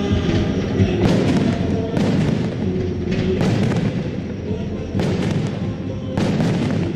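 Aerial fireworks bursting: five sharp bangs roughly a second or so apart, each followed by a brief crackle, over background music from loudspeakers.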